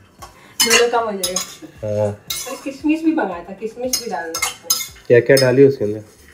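A metal spoon stirring and scraping chopped cashews, almonds and walnuts as they roast in ghee in a stainless steel kadai, with repeated sharp clinks of metal on metal.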